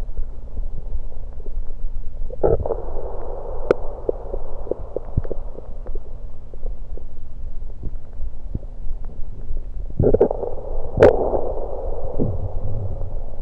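Stomach gurgling with carbonated Diet Pepsi inside, recorded up close and muffled. A steady low rumble is dotted with many small clicks and pops, and two louder gurgles come about two and a half seconds in and again around ten seconds in.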